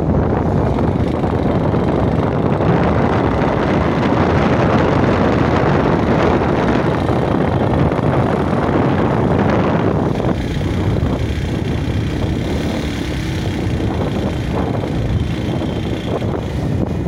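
Wind rushing over the microphone together with the road and engine noise of a moving vehicle, a steady roar that eases somewhat about ten seconds in.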